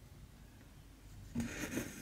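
Needle and cotton thread drawn through cross-stitch fabric: one short scratchy rasp about one and a half seconds in.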